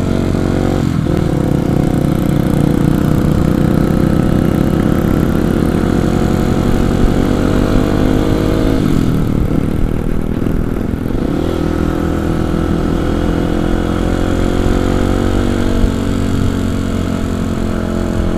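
Kawasaki KLX 250's single-cylinder four-stroke engine pulling the motorcycle along, its pitch climbing slowly as it accelerates. The pitch drops sharply about nine seconds in, then climbs again and holds fairly steady.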